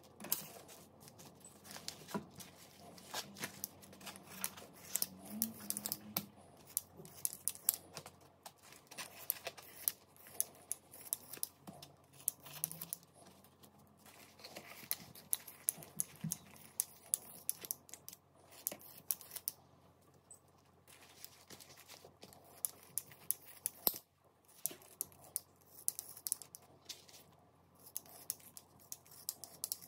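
Irregular small clicks, taps and rustles of things being handled, coming in quick scattered clusters with short pauses between them.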